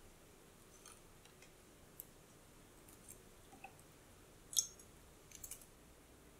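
Sheets of gelatin pressed down into a glass dish of water by fingers to soften them: faint small wet clicks and light splashes, with one sharper click about four and a half seconds in.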